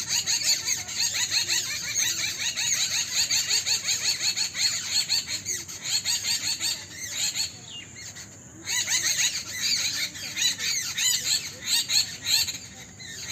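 Dense chorus of many small birds chirping rapidly and overlapping, with a short lull about eight seconds in.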